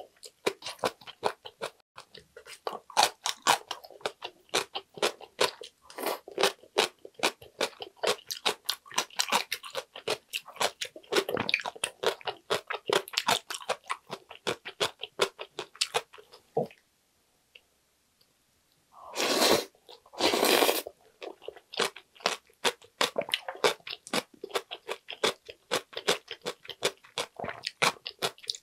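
Close-miked eating of ramyun noodles: quick, wet, crunchy chewing and mouth clicks, a pause of about two seconds past the middle, then two louder short slurps before the chewing resumes.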